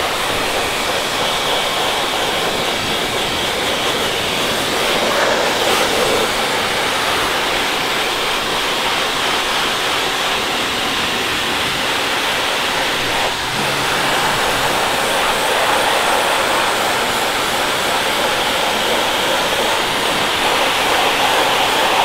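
Steady rush of air from a blower hose played over a duck's feathers, drying the bird and fluffing up matted down feathers until they separate.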